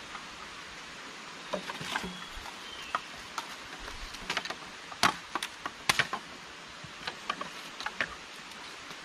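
Machete blade striking and shaving a long wooden pole: an irregular run of sharp knocks and clicks, the loudest about five and six seconds in, over a steady background hiss.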